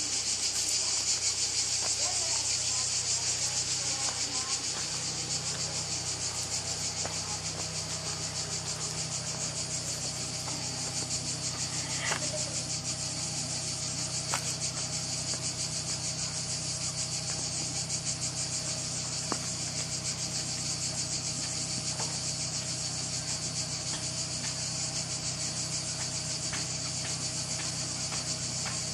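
Steady, high-pitched chorus of insects singing with a fine rapid pulse, over a low steady hum, with a few faint clicks.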